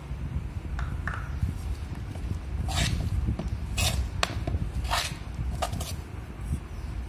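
Flour and milk being mixed by hand into dough in a metal bowl: about half a dozen short scraping and rustling strokes as the fingers drag the flour against the bowl, over a steady low rumble.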